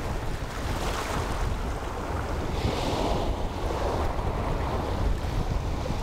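Sea waves washing against a rocky shore, swelling and easing, with wind rumbling on the microphone.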